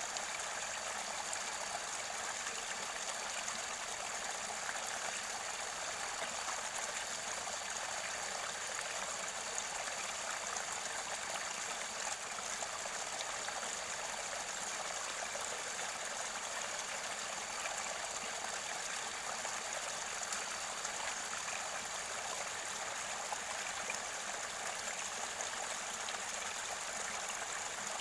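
Mountain stream water flowing and gurgling steadily, close to its spring source.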